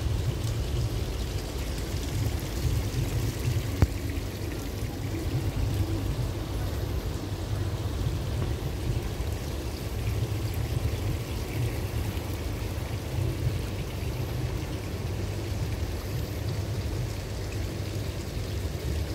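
Decorative rain drop fountain: water falling in many thin streams into its basin, a steady pouring splash, over a low rumble. A single sharp knock about four seconds in.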